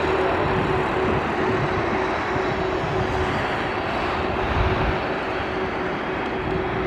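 Large jet aircraft's engines running: a loud, steady rush of noise with a steady hum under it, easing slightly toward the end.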